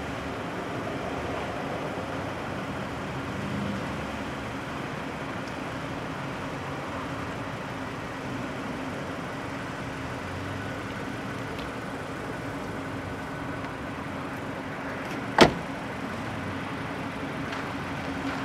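A steady low hum under even background noise, with one sharp knock about fifteen seconds in.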